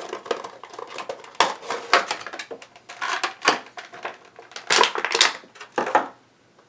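Handling and opening a Funko Pop's cardboard window box and its plastic insert to take the vinyl figure out: a busy run of crinkles, scrapes and clicks that stops about six seconds in.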